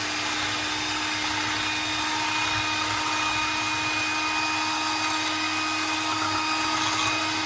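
Electric hand mixer running steadily, its beaters whipping cream in a glass bowl.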